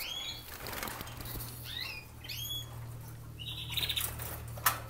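Caged canaries fluttering their wings and giving short chirps, disturbed as the nest is put back in the breeding cage. A single sharp click near the end, over a steady low hum.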